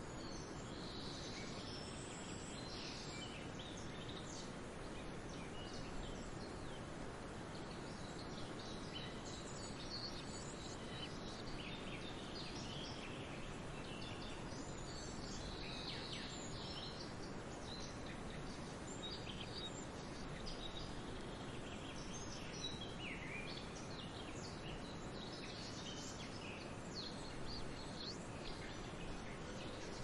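Many short bird calls and chirps, overlapping and scattered throughout, over a steady background hiss.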